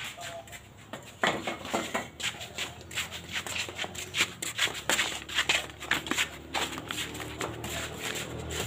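Irregular clacks and scuffs, several a second, of flip-flop footsteps on a concrete floor and bricks and pots being handled. A low motor hum comes in near the end.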